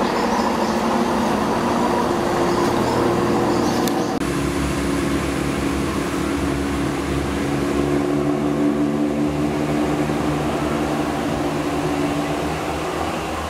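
Diesel multiple unit's underfloor engines running as the train pulls away from the station: a steady drone with several engine tones, whose sound changes about four seconds in.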